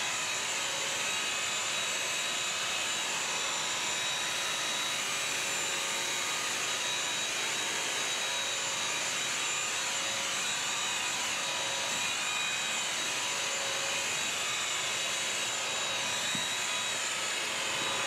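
BISSELL Crosswave wet/dry vacuum running steadily while it is pushed over a hard tile floor, sucking up dry kitty litter. Its motor gives a steady whine with a high tone, and the pitch rises and falls slightly now and then.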